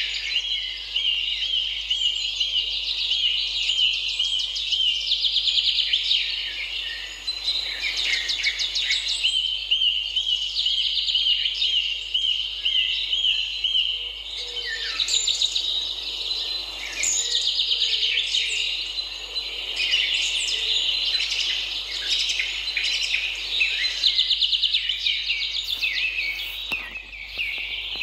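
A dense chorus of small birds chirping, with runs of rapid repeated chirps overlapping one another.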